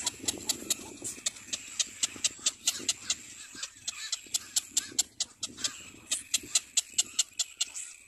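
Little black cormorant chicks begging at the nest: a rapid, uneven series of short, high clicking calls, about four or five a second.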